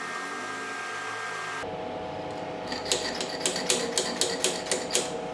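Steady machine hum, which changes abruptly about a second and a half in, then a run of light metallic ticks, about three or four a second: a steel vernier caliper's jaws knocking against the milled metal workpiece as the slot is measured.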